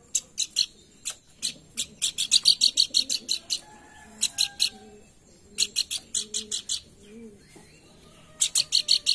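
Pelanduk bukit bird calling in quick runs of sharp, high chip notes, several notes to each run, with short pauses between runs. Fainter, lower bird calls sound underneath.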